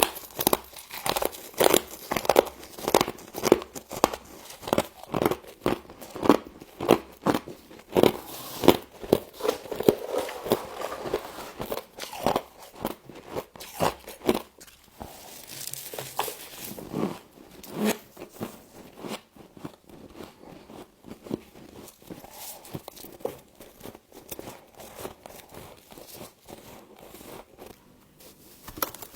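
Close-up biting and chewing of frost: sharp, crisp crunches about twice a second for the first nine seconds or so, then softer, faster crackly chewing.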